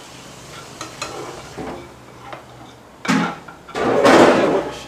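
Frying pan on the stove: faint clinks of stirring, then a short burst and a loud sizzling hiss lasting about a second near the end.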